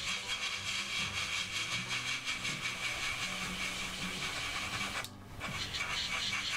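Airbrush spraying paint with a steady hiss that cuts out briefly about five seconds in, then resumes. A low hum runs underneath.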